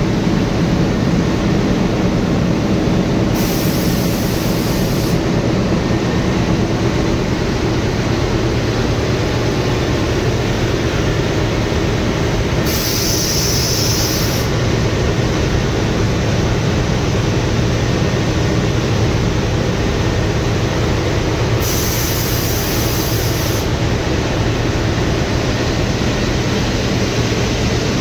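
Railway diesel locomotive engine running loud and steady. A high hiss breaks in three times, about every nine seconds, each lasting roughly two seconds.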